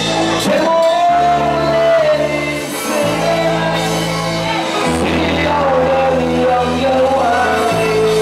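Male vocalist singing a chutney song live through a microphone, backed by a keyboard band. He holds long, wavering notes over bass notes that change every second or two.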